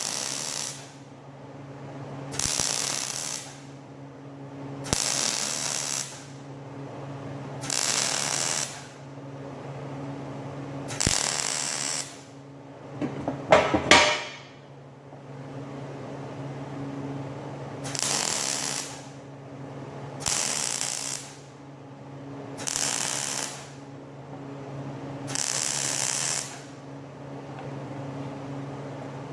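Arc welder laying short stitch welds: about nine crackling bursts of roughly a second each, every two to three seconds, over a steady machine hum, with a brief metallic rattling clatter about halfway through.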